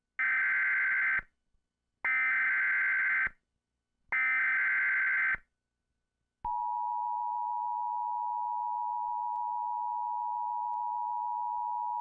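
Emergency Alert System tones: three short bursts of screeching digital header data, about two seconds apart, then the steady two-tone attention signal starting about six and a half seconds in.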